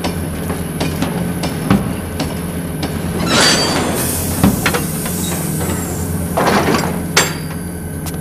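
Freight train wagons in a rail yard: scattered metallic clanks and knocks over a steady low rumble.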